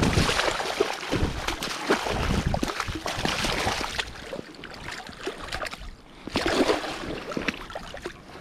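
Shallow river water splashing and sloshing as a landed steelhead thrashes at the gravel edge and is grabbed by hand, with wading boots stepping through the water. The splashing is heaviest over the first few seconds, eases, then picks up again briefly after about six seconds.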